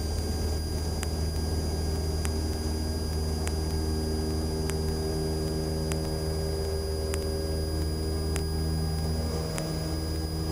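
1976 Cessna 172M's four-cylinder Lycoming O-320 engine and propeller running at full takeoff power: a steady, unchanging drone as the plane accelerates and climbs out.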